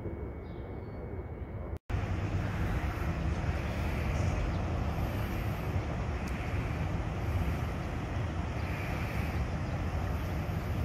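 Low, steady rumble of street traffic as a city bus approaches, with wind buffeting the microphone. There is an abrupt cut about two seconds in, and the rumble is louder after it.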